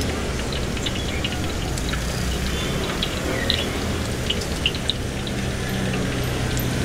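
Oyster fritters deep-frying in a wok of hot oil: a steady bubbling sizzle with scattered crackles, and a few sharper clicks near the middle.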